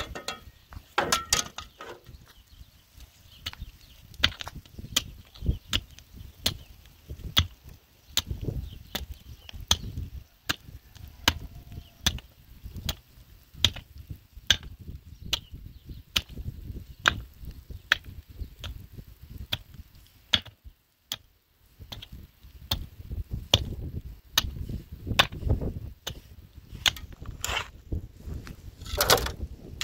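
Long-handled metal hoe chopping repeatedly into stony soil, a steady run of sharp strikes about one and a half to two a second, with a short pause about two-thirds of the way through.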